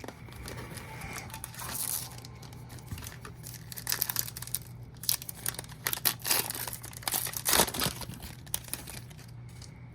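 Crinkling and rustling of a trading-card pack wrapper and cards being handled, in several short bursts over a low steady hum.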